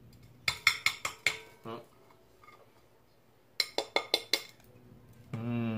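Crisp tinagaktak pastry snapping and clicking against a ceramic plate: two quick runs of sharp cracks, about six in the first couple of seconds and about five more past the middle. A short hum of a man's voice with falling pitch starts near the end.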